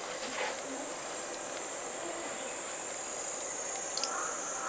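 Steady high-pitched insect chorus shrilling without a break, with a faint click about four seconds in.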